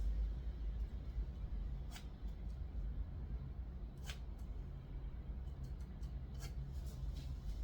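Steady low hum with a few short, light clicks or scrapes, roughly every two seconds.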